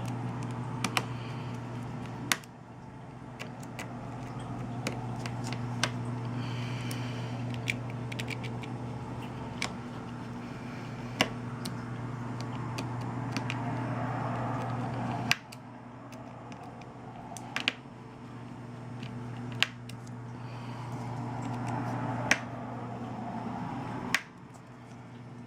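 Sharp little clicks and taps of a small screwdriver and screws as the Samsung Galaxy S7's internal screws are driven back in, over a steady low hum.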